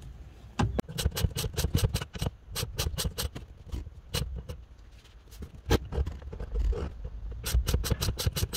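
Ratchet wrench on a long socket extension undoing a 14 mm seat-mounting bolt: runs of quick, sharp clicks as the handle is swung back and forth, broken by short pauses, over low knocks of handling.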